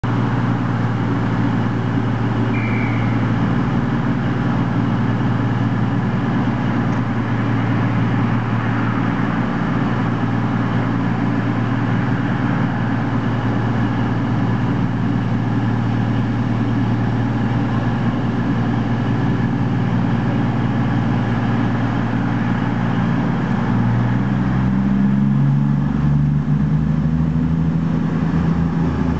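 Underfloor Cummins diesel engines of a CrossCountry Voyager multiple unit idling steadily, then throttling up with a rising drone about 24 seconds in as the train pulls away.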